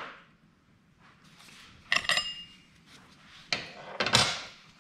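Metal hand tools clinking and knocking against a workbench as they are handled and set down: a ringing clink about two seconds in, then two duller knocks near the end.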